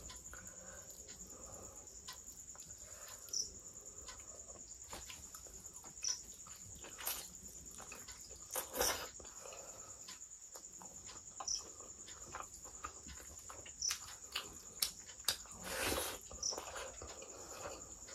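Close-miked hand-eating sounds: fingers squishing and mixing curry and rice, and a mouth chewing and smacking, heard as scattered short clicks and wet bursts, loudest about nine seconds in and near sixteen seconds. A faint steady high whine runs underneath.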